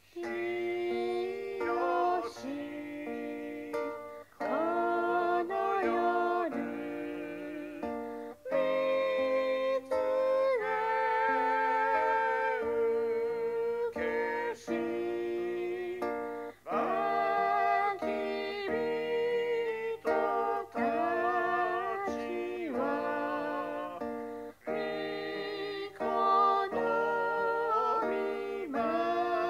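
A recorded hymn sung with acoustic guitar accompaniment, played back from an iPad, phrase after phrase with short breaks between lines.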